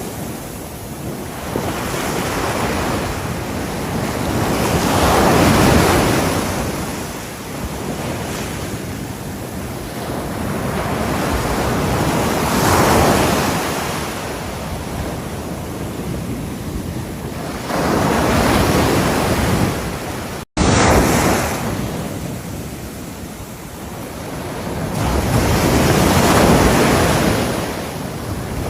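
Ocean waves breaking on a seashore, each surge swelling and washing back every several seconds. The sound cuts out completely for an instant about two-thirds of the way through, then resumes.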